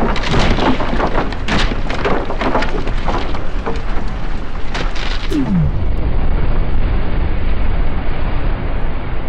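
Building explosion: a dense crackle of blast and flying debris, with a brief falling tone about five and a half seconds in, then a steady deep rumble.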